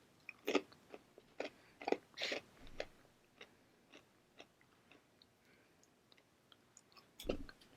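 Close-up eating sounds of a person chewing food: a run of short crunchy bites and wet mouth clicks over the first three seconds, then a few faint scattered clicks, and a soft low thump near the end.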